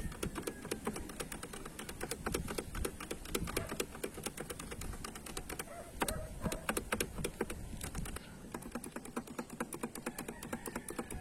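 Typing on an Epomaker SK68 65% mechanical keyboard with optical red linear switches and DSA PBT keycaps: a steady, irregular run of key clicks, several a second.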